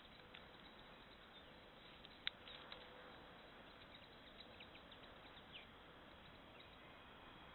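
Near silence: a trail camera's steady hiss with scattered faint ticks and one sharp click a little over two seconds in, as a red fox cub moves over dry twigs.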